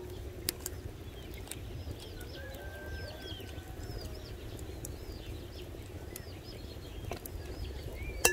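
Small birds chirping steadily in the background. Right at the end, an egg is rapped on the rim of a glass mixing bowl: a sharp click with a brief glassy ring.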